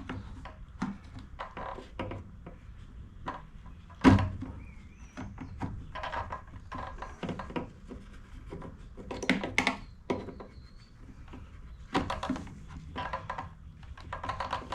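Handling noises from working a new fuel line through a rubber grommet on an Echo PB-500T backpack blower: scattered taps, knocks and rubbing, with one loud thunk about four seconds in.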